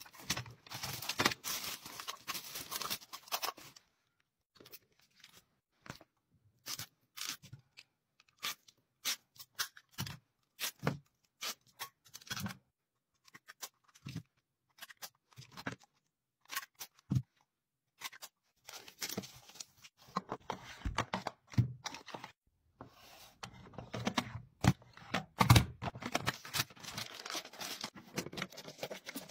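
Order-packing handling sounds: plastic bags and packaging rustling and crinkling, with a long run of separate clicks and taps in the middle from picking up supplies and working clear plastic storage drawers.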